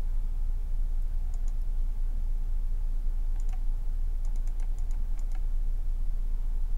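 Computer mouse clicking buttons on an on-screen calculator: light clicks here and there, with a quick run of them about four to five seconds in, over a steady low electrical hum.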